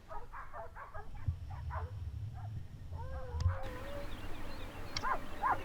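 Hunting dogs yelping and baying: a quick run of short yelps, then drawn-out calls that rise and fall in pitch. A low rumble sits under the yelps for a couple of seconds.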